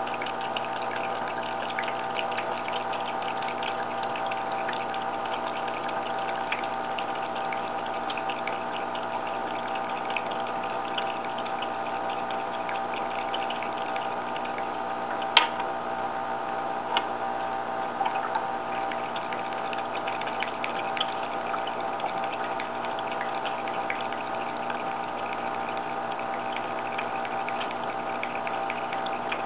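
A small pump humming steadily with water running or trickling, and one sharp click about fifteen seconds in.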